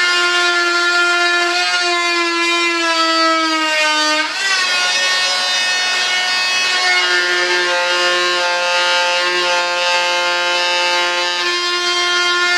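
High-speed electric rotary tool running continuously as it trims a fibreglass layup, a steady high whine whose pitch sags and wavers under the cutting load about four seconds in, with a lower growl added in the second half.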